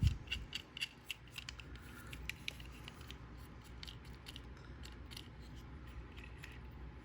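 Wheel of a vintage die-cast Hot Wheels Blazer 4-wheel drive rubbing as the toy is rolled, a quick irregular run of small scratchy clicks that thins out after about three seconds.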